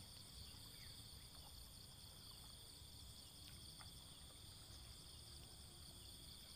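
Faint, steady chorus of insects, several even high-pitched tones held without a break, over a low rumble.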